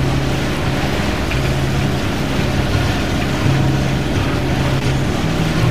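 1978 Islander Bahama 30's inboard engine running at a steady speed under way, a low hum over wind and water noise.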